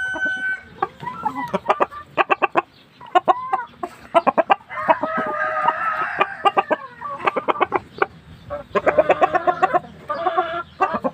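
Chickens clucking in quick short calls, with a longer drawn-out call of about two seconds near the middle and another run of calls near the end.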